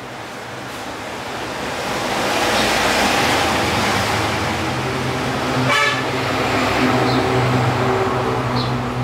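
A motor vehicle running close by, its engine hum growing louder over the first three seconds and then holding steady. About six seconds in there is a brief sharp sound.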